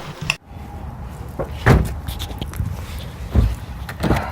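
Three dull thumps over the low, steady rumble of a car, heard from inside the car.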